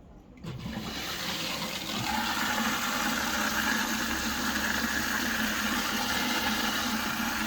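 Water rushing into a Samsung washing machine through its replacement two-way inlet valve. The valve opens suddenly about half a second in, and the steady hiss of filling builds over the next second or so: the machine is filling again after the repair for its 4C water-supply error.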